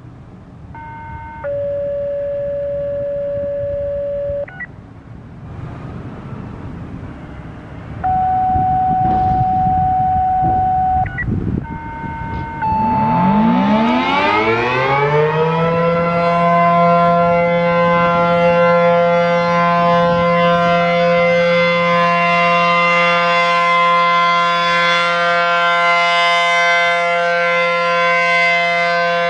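Radio activation tones play first: a long held tone, then a second, higher tone, then a short third tone higher still. About halfway through, an A.C.A. P-10 outdoor warning siren winds up, rising in pitch, and settles into a loud, steady full-alert tone of several notes at once.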